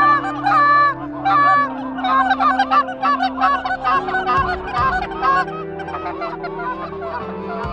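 Canada goose honking: many overlapping honks and clucks, loud separate honks in the first couple of seconds, then a denser, softer flock chatter.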